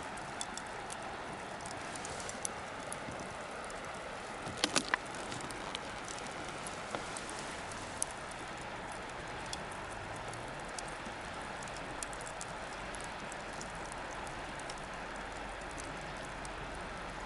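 Bonfire burning with a steady hiss and scattered crackles and pops, with a quick burst of louder pops about five seconds in.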